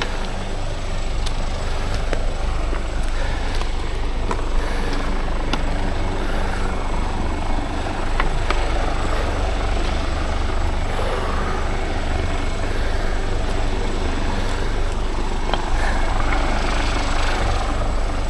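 Wind buffeting the camera microphone in a steady low rumble, with scattered light clicks of footsteps on rocky limestone ground.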